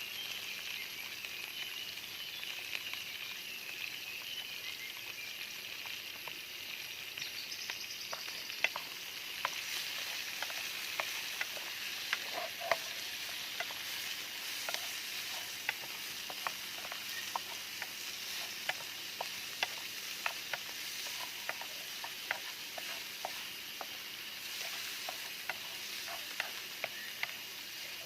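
Food sizzling as it fries in a pan, a steady hiss. From about eight seconds in, many sharp clicks and taps sound over it.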